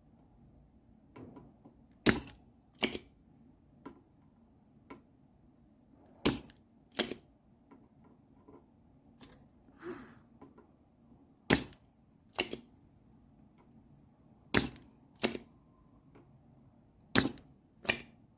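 Spring-loaded solder sucker (desoldering pump) snapping over and over as solder is pulled off the connector's pins. The sharp snaps come in pairs under a second apart, five pairs, one every three to five seconds.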